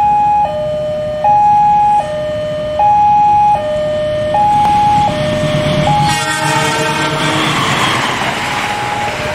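Railway level-crossing warning alarm sounding a repeating two-tone chime, a low and a high note alternating about every three-quarters of a second. About six seconds in, a diesel locomotive's horn sounds briefly and the express passenger train rushes past, its passing noise swelling over the alarm.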